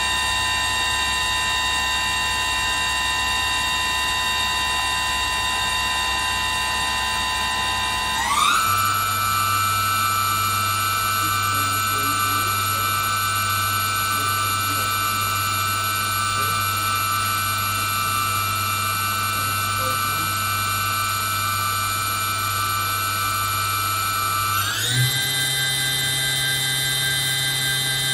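Hitachi Seiki HS500 horizontal machining center's spindle running free, a steady whine of several tones. Its speed steps up twice, about eight seconds in and again near the end, each time with the pitch gliding up quickly to a new steady level.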